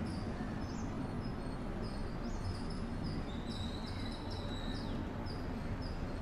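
Birds chirping in the background: many short high chirps repeating about twice a second, with a longer held note a little past the middle and a few quick falling calls, over a steady low background hum.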